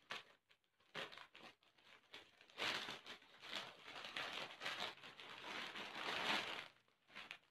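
Scissors snipping a plastic courier mailer in a few short cuts, then plastic packaging crinkling and rustling for about four seconds as the packet is opened and pulled out.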